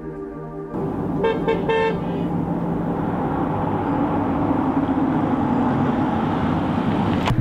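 Volkswagen Transporter van sounding its horn in three short toots, then its engine and tyres growing louder as it drives up the road.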